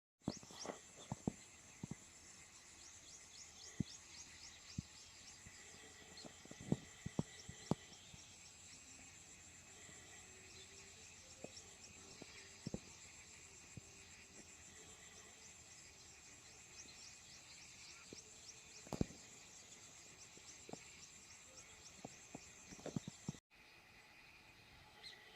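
Faint outdoor ambience: a steady high-pitched chirring of insects, with scattered sharp clicks and ticks. The sound drops out suddenly near the end.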